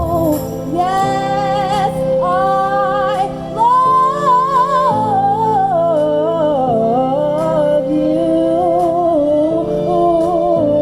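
Music: a woman singing a wordless, sliding vocal line over steady held backing chords.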